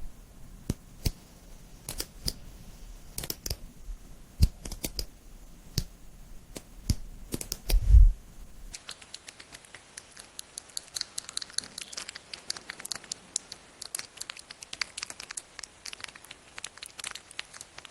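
Glitter slime being squeezed and pressed, its trapped air bubbles popping in sharp, irregular clicks. There is a louder low thud about eight seconds in, and after that the pops come in a denser run of fast crackling.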